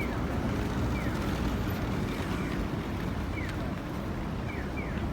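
Crowded train station ambience: a steady low rumble of noise, with short high chirps falling in pitch recurring every second or so.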